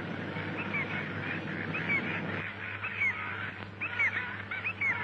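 A flock of gulls calling, with many short squawks overlapping one another, over a low steady hum.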